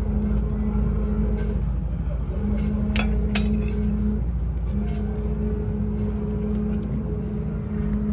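Two light clinks of tableware about three seconds in, over a steady low hum that drops out briefly and comes back a few times.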